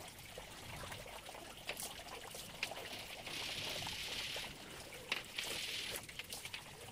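Water trickling and splashing as a wet cotton string mop is wrung out by hand and dunked in a plastic bucket, heaviest in two stretches in the second half. A few sharp knocks come in between.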